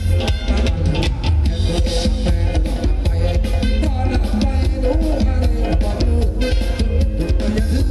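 Live band playing loud, amplified cumbia-style ramwong dance music, with a heavy bass and a steady drum beat.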